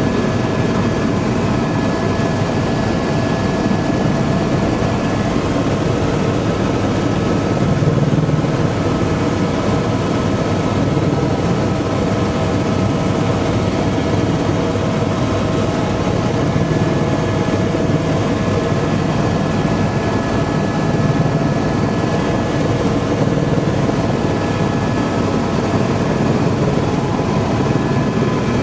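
Tour helicopter in flight, heard from inside the cabin: a loud, steady rumble of rotor and engine noise with a few steady whining tones over it.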